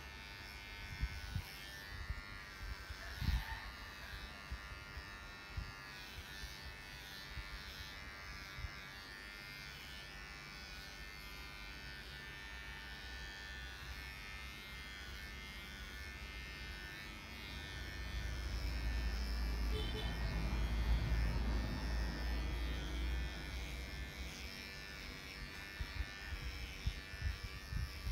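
Electric pet grooming clippers running with a steady buzz while trimming a Shih Tzu's coat. Scattered short knocks come through, and a louder low rumble lasts several seconds in the second half.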